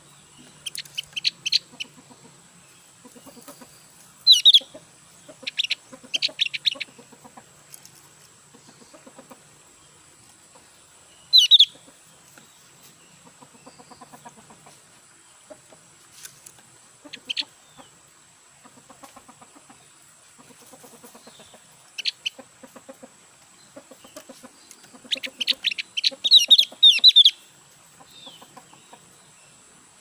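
Caged Javan grey-throated white-eye (opior jawa) giving short, sharp, high chirping calls in scattered bursts, with a longer run of rapid chirps near the end. These are agitated calls rather than full song: the newly bought bird is not yet singing freely.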